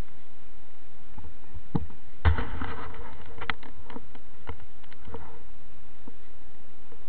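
Steady microphone hiss from a handheld camera, with scattered clicks and a burst of rustling and rubbing about two seconds in: handling noise as the camera is moved.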